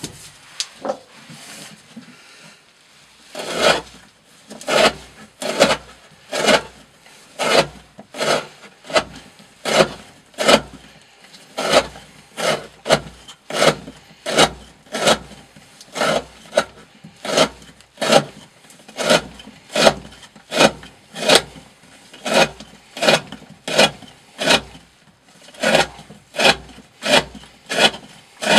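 Knife blade slicing through a thick rope, cut after cut at an even pace of about one and a half strokes a second, each cut a short rasping rub. The strokes begin a few seconds in, after some quieter handling sounds.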